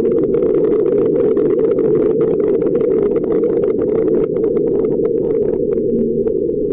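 Mars rover driving, heard through its onboard microphone: a steady low rumbling noise with a dense, irregular run of clicks and knocks from the wheels on rock.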